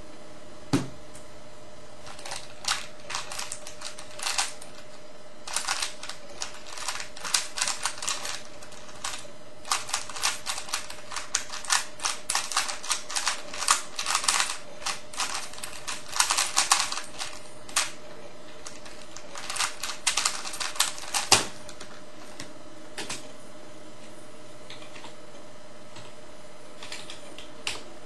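Rubik's cube with smooth Cubesmith tiles being speed-turned: fast runs of plastic clicking and clacking in bursts for about twenty seconds, with a sharp click at the start and a loud sharp knock as the solve finishes.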